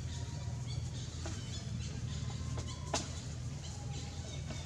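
Outdoor ambience: short high chirps repeat every half second or so over a steady low hum. A few sharp clicks come through, the loudest about three seconds in.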